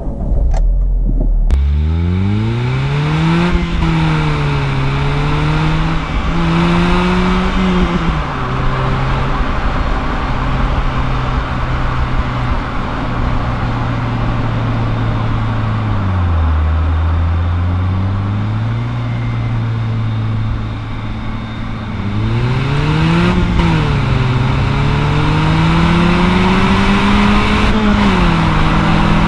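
2003 Honda Civic Si's four-cylinder engine heard from inside the cabin: it starts with a turn of the key, then revs up through the gears of its manual gearbox, the pitch dropping at each upshift. It cruises steadily, eases off briefly near the middle, and then accelerates through the gears again near the end.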